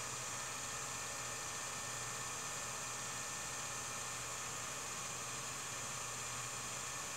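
Steady hiss with a low electrical hum and nothing else: the background noise of a silent home-movie transfer.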